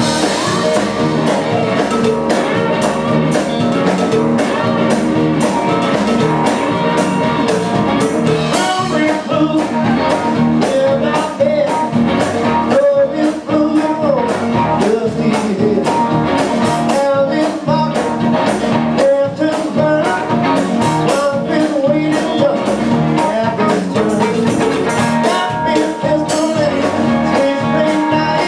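Live blues-rock band playing: a resonator guitar, an electric bass and a drum kit.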